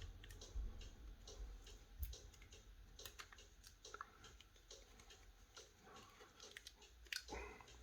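Faint, scattered light clicks and taps of small phone parts being handled and pressed into place while a smartphone is being put back together.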